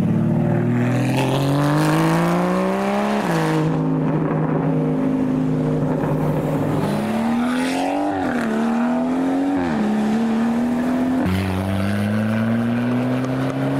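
Wide-body Porsche Cayman engine pulling away, its revs climbing and then dropping back at gear changes three or four times.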